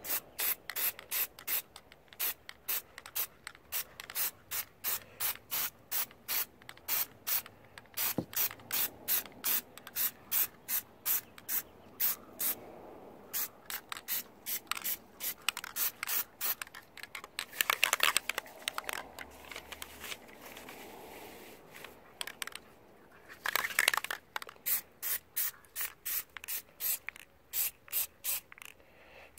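Aerosol can of Plasti Dip rubber coating sprayed onto a metal wiper arm in short hisses, about two a second, with a couple of longer, louder sprays partway through.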